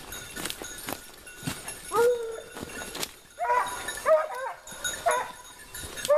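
A pack of white hunting hounds giving tongue in short bays while working a scent line: one cry about two seconds in, a quick run of several cries a little later, and another near the end, with light crackling between the cries.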